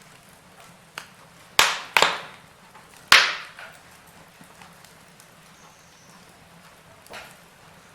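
Wood fire crackling in a fireplace: four sharp pops of burning firewood in the first few seconds, the loudest about three seconds in, and one softer pop near the end, over a low steady hiss.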